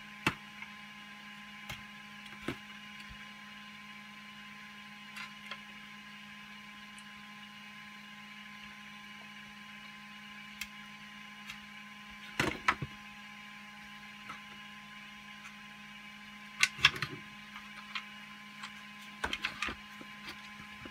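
Hard 3D-printed plastic parts clicking and knocking as they are handled and pushed into place, loudest about halfway through and again a few seconds later, over the steady hum of a 3D printer running.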